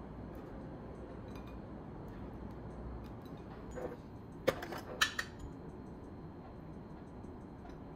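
A few sharp clinks about four to five seconds in, from a metal spoon and a glass jar of caramel sauce being handled, over a faint steady room hum.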